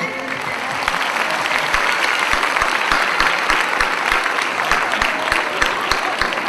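Audience applauding: many hands clapping together, swelling over the first second and then holding steady.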